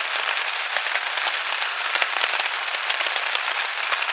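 Heavy rain falling steadily on the tent and its plastic-sheet tarp, heard from inside the tent: a dense, even hiss full of small sharp taps from individual drops.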